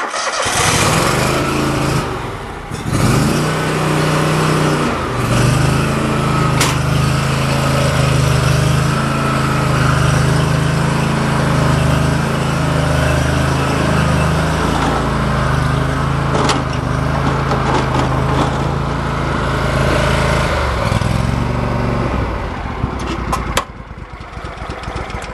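Riding lawn mower engine started on choke at full throttle, catching at once and running steadily with a brief dip about two seconds in. Near the end the engine note drops and it runs quieter.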